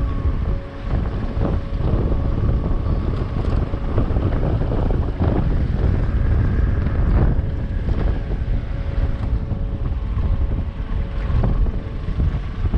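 Wind rumbling on the microphone of a moving maxi-scooter, with the scooter's engine running underneath as a faint steady whine.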